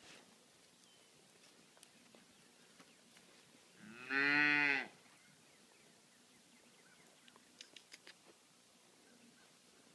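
A young bull calf moos once, a loud call about a second long whose pitch rises and then falls.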